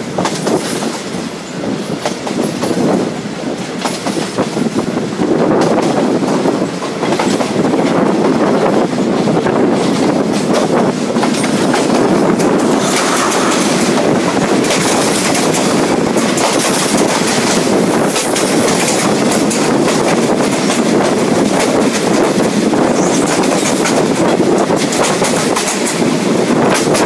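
Passenger train running, heard from an open window: steady rumble and rushing with the clickety-clack of wheels over rail joints. Another train's carriages pass close by on the next track, and the noise grows louder about five seconds in.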